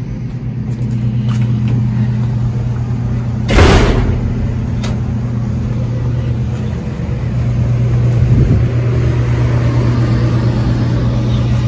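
Outdoor air-conditioning units running with a steady low mechanical hum that grows louder as they come closer. A short, loud rush of noise cuts in about three and a half seconds in.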